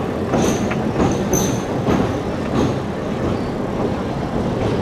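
Passenger train rolling over a wooden trestle viaduct, heard from the carriage window: a steady rumble of wheels on rails with occasional knocks, and brief high wheel squeals twice in the first two seconds.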